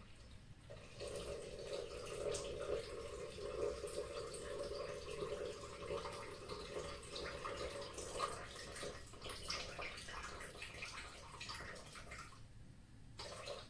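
Water poured in a steady stream into the stainless steel bowl of a Monsieur Cuisine Connect kitchen machine. It starts about a second in, breaks into trickles and splashes after about eight seconds, and stops near the end.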